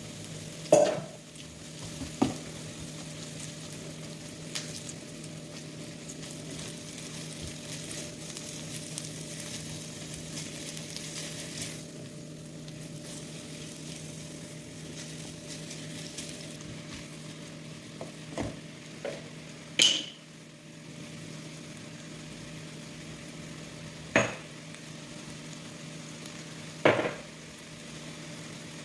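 Food sizzling in a frying pan as it is stirred, with about five sharp knocks of a utensil against the pan.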